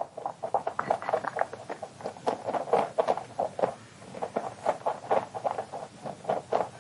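A rabbit licking and sucking at the metal spout of a drinking bottle: a quick, uneven run of small clicks, several a second.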